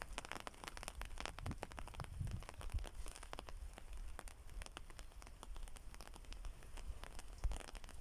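Rain in a thunderstorm: scattered raindrops tapping irregularly, several a second, over a steady low rumble.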